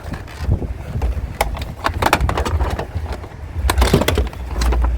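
Irregular clattering knocks and clicks of hard scrap items being handled and moved, with a few sharper knocks in two clusters, over a low wind rumble on the microphone.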